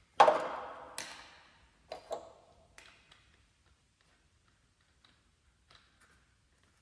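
Metal clanking: a loud strike that rings on for over a second, a second strike about a second later, then a quick pair of lighter clanks and a last small knock, like pieces of steel being struck or dropped in a workshop.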